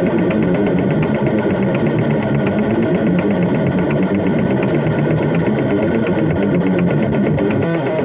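Heavily distorted electric guitar playing a fast death-metal riff, with quick, evenly repeated picked notes.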